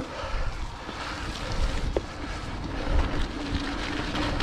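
Mountain bike rolling along a wet, flooded trail, with wind buffeting the microphone and tyre and splash noise. A steady low hum joins about halfway through.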